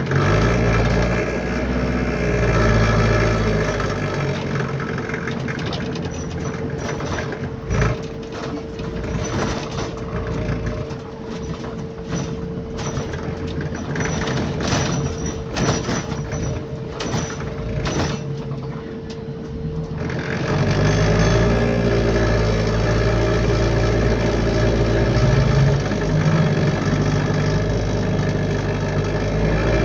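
Bus engine and body heard from inside the passenger cabin, with a rattly running sound. Through the middle the engine drops back and a run of sharp knocks and rattles stands out over a steady whine. About two-thirds in, the whine stops and the engine comes up loud again.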